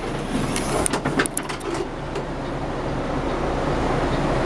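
Steady hum of a truck's idling engine and air-conditioning blower heard inside the sleeper cab, with a few light clicks and knocks in the first two seconds as the sleeper bunk is opened.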